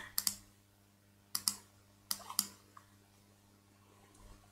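A handful of sharp clicks from a computer mouse and keyboard, coming in small groups of two or three, over a faint steady electrical hum.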